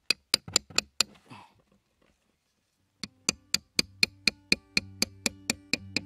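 Small hammer tapping on a cardboard box, quick regular strikes about four a second, in two runs with a pause of about two seconds between. Background music fades in under the second run.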